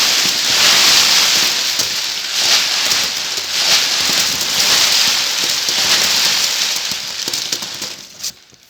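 Homemade rainstorm sound effect: rice trickled into a container, scraps of aluminium foil dropped, and an old plastic bag rubbed, mixed into a dense, rain-like hiss that swells and eases repeatedly. It fades out near the end after a brief last burst.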